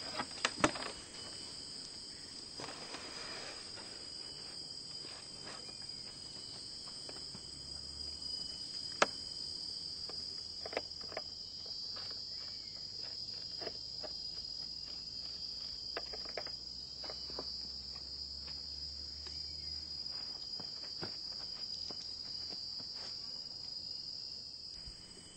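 Steady high-pitched insect chorus that slowly swells and fades, with a few sharp clicks scattered through it. A faint low hum runs from about eight to twenty seconds in.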